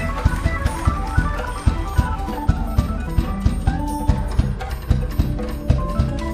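Live band music: a fast keyboard solo on Hammond organ, with quick runs of short notes, over a steady drum-kit beat and bass.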